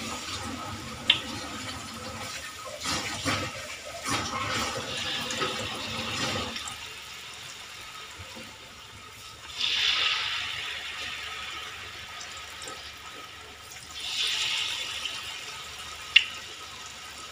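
Rice-flour-battered cassava pieces deep-frying in hot oil in a steel wok, a steady sizzle that swells and fades a few times. A sharp click about a second in and another near the end.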